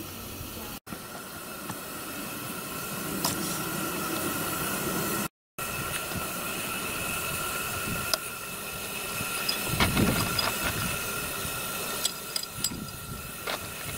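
Coal-fired 7¼-inch gauge miniature live steam locomotive hissing steadily as it raises steam, with a steady high tone running through the hiss. A few sharp metal clicks near the end as a fire iron works at the firebox door.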